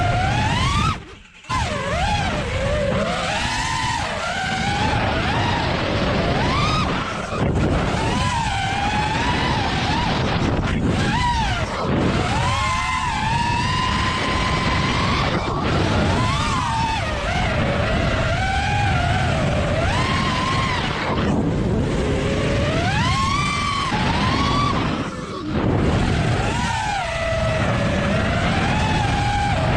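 FPV drone's electric motors and propellers whining, the pitch rising and falling with the throttle. The sound cuts out almost completely about a second in and dips briefly twice more later.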